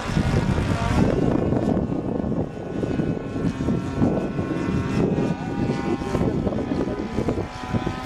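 Petrol engine of a Seagull Edge 540 radio-control model plane (about 26cc) droning steadily as it flies overhead, under heavy wind buffeting on the microphone, which is the loudest sound.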